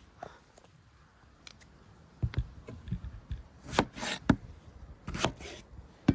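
Cleaver cutting through a tomato on a wooden cutting board: a run of knocks and slicing strokes starting about two seconds in, the loudest cuts coming a little past the middle.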